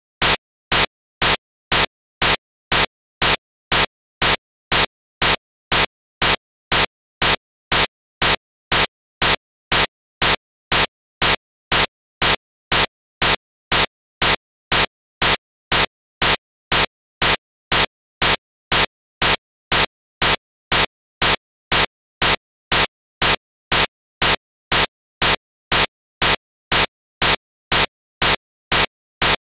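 Short, loud bursts of static-like noise repeating evenly about twice a second, with silence between each, typical of a digital glitch or corrupted stretch in the recording.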